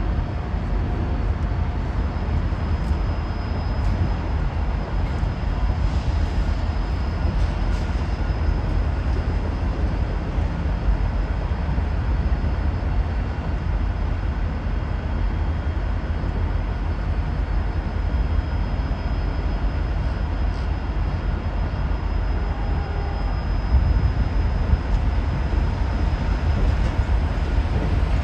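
Caltrain passenger train arriving at the platform: a steady, even rumble, with a few faint, steady high tones above it.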